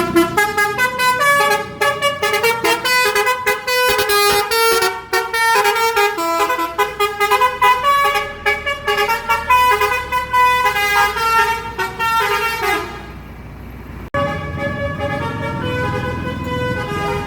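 Bus's Basuri telolet multi-tone horn playing a fast tune of short notes. It stops about 13 seconds in, then a click is followed by more notes over the rumble of the engine.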